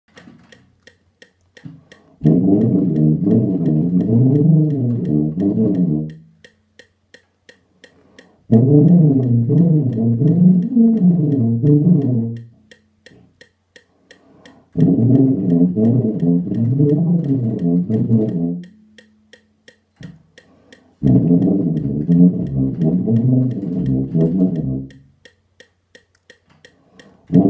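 Rotary-valve tuba playing a fingering and lip-trill exercise: four fast slurred passages of notes zigzagging up and down, each about four seconds long, with short rests between. A metronome ticks steadily underneath at about three beats a second (172 bpm).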